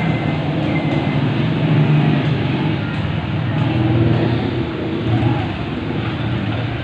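A steady, loud mechanical drone with a wavering low hum, like an engine or motor running.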